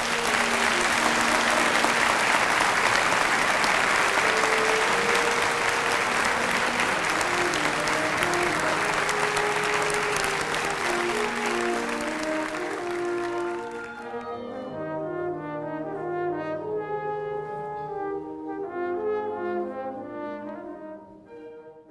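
Audience applauding over brass music. The applause cuts off suddenly about fourteen seconds in, leaving the brass music alone, which fades out at the end.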